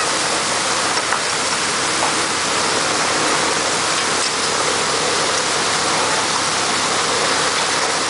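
A dense shoal of small fish thrashing and splashing at the surface inside a purse seine net: a steady, even rush of splashing water.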